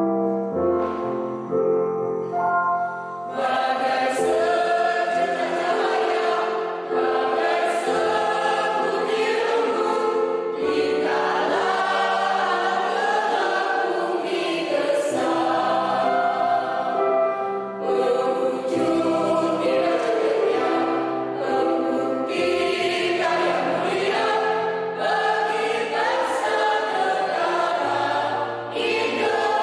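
Mixed choir of men and women singing, growing much fuller about three seconds in.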